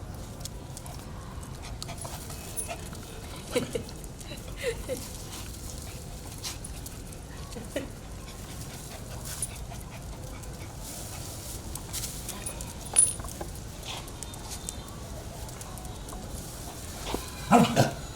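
Dogs eating with a few short whimpers. A sudden loud snarl near the end as they squabble over the food.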